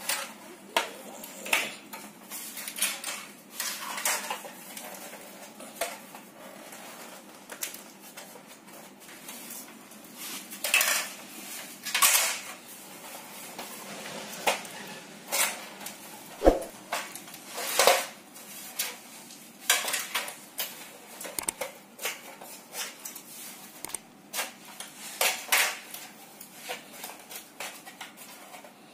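Irregular clicks, taps and scrapes as hands handle LED backlight strips on a TV's sheet-metal back panel, with a few sharper metallic knocks, the loudest a little past halfway.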